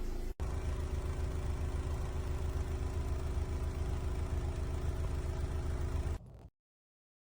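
GE Profile ClearView inverter window air conditioner running with a steady low hum and a few steady droning tones; it cuts off suddenly about six seconds in.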